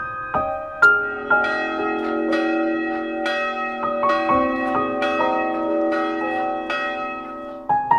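Church bells ringing a peal, about two strikes a second, each tone ringing on into the next.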